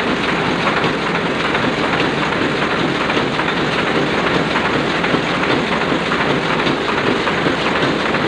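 Sakurai Oliver 66 offset printing press running at a steady speed, a dense, even mechanical clatter.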